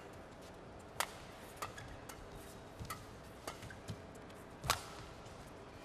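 Badminton rally: sharp cracks of racket strings striking the shuttlecock, about one every second, some louder than others.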